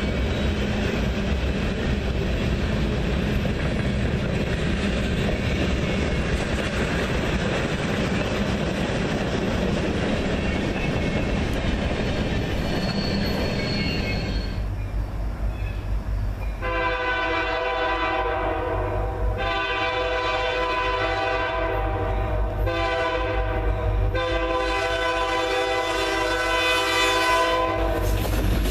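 Freight cars rolling past with wheel clatter and rumble. After a cut, a Reading and Northern EMD diesel locomotive's horn sounds the grade-crossing signal, long, long, short, long, over the low rumble of the approaching locomotives.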